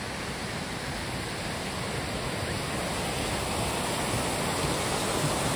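Waterfall cascading steeply over rocks: a steady rush of water, growing a little louder toward the end.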